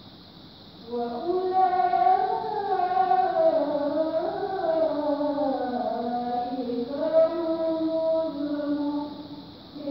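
A middle-aged woman reciting the Qur'an in the melodic qira'ah style, starting about a second in with one long phrase whose pitch glides and wavers in drawn-out ornaments. It fades out briefly near the end before the next phrase begins.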